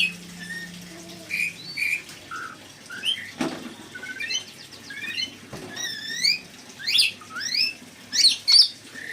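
Birds chirping and whistling: a quick, continual series of short, sharp notes that sweep up and down in pitch. A knock is heard about three and a half seconds in, and another a couple of seconds later.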